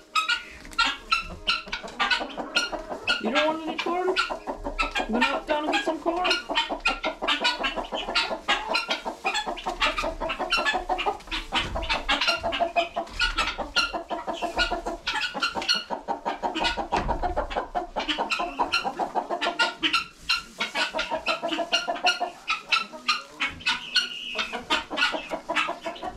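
A flock of chickens clucking and calling, many short calls overlapping and repeating rapidly without a break.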